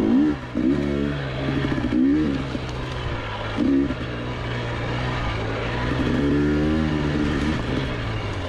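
GasGas EC300 single-cylinder two-stroke dirt bike engine under way at low speed, the revs rising and falling again and again with the throttle.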